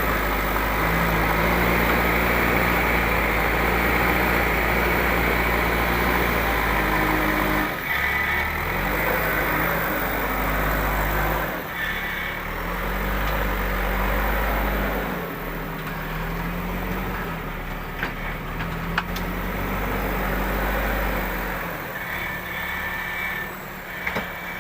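Heavy construction machine's diesel engine running, its pitch stepping up and down repeatedly as it revs under working load, with a few short drops in level.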